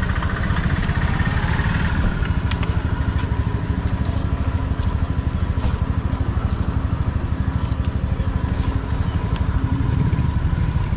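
A small engine idling steadily with a fast, even pulsing beat.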